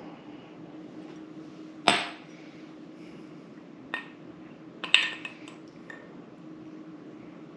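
A glass set down on a granite countertop with one sharp, ringing clack about two seconds in. Ice clinks against a rocks glass in a few quick knocks between about four and five seconds, as the glass is swirled and lifted.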